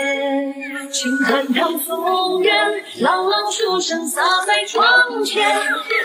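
Music: a woman's voice singing a Chinese-style (guofeng) pop song, with held notes that waver in pitch.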